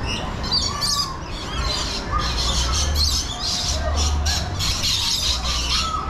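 A flock of birds squawking and chirping, many short calls overlapping, over a low rumble.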